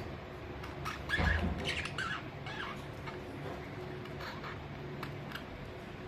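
Budgerigars chirping and chattering in short calls, busiest and loudest about a second in, with a dull bump at the same moment, then a few faint scattered chirps.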